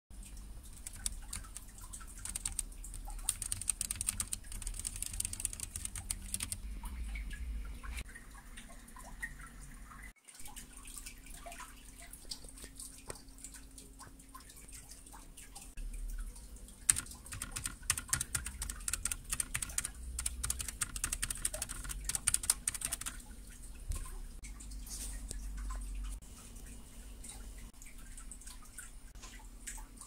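Typing on a Perixx PeriBoard-328 mechanical keyboard with Kailh Brown tactile switches: rapid key clicks in two dense runs of fast typing, near the start and again about two-thirds of the way through, with slower, sparser keystrokes between.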